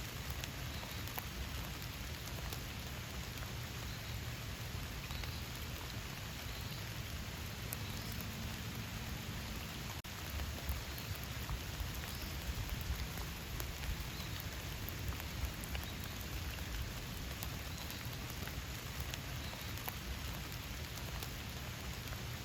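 Steady rain falling in a forest, with many separate drops ticking through the steady hiss.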